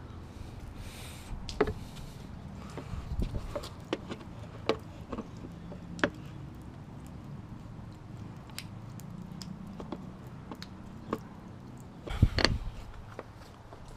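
Scattered light clicks and knocks over a low steady hum, with a louder clatter of knocks about twelve seconds in.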